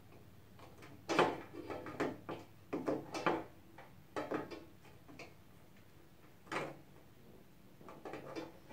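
Parts of a PC case being handled and pulled out: a series of irregular knocks, clicks and short scrapes, loudest about a second in and around three seconds in.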